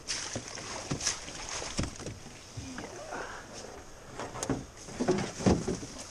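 Irregular knocks and thuds on a jon boat's hull, with rustling, as the boat is gripped and handled by the gunwale; the loudest thumps come about five seconds in.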